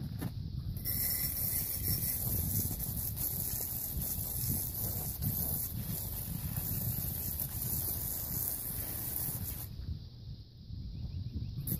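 Garden hose spray nozzle spraying water onto a bicycle: a steady hiss that starts about a second in and cuts off near the end, over a low wind rumble on the microphone.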